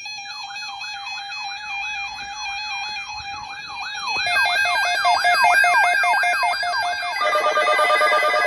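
Electronic siren-like warble: rapid up-and-down pitch sweeps, about four a second, over steady synthesized tones. More tones join about four seconds in and again near the end, and it grows louder.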